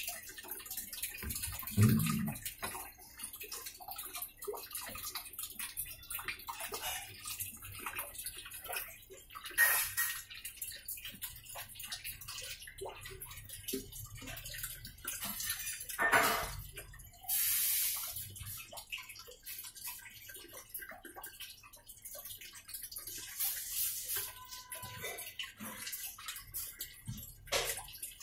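Water sloshing and splashing in the tub of a Midea MWMTL062M31 top-load washing machine running a wash with water in it, with irregular knocks and a few louder splashes.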